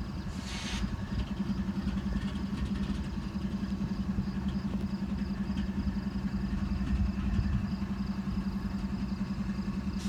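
Stopped train idling, a steady low hum with a fast, even throb. A short hiss comes about half a second in.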